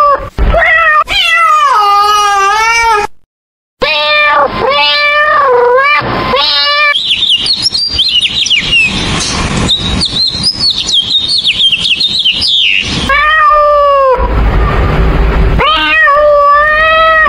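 Domestic cats meowing in long, drawn-out meows that bend in pitch, cut off briefly to silence about three seconds in. In the middle comes a run of rapid, high bird chirps, then cat meows again near the end.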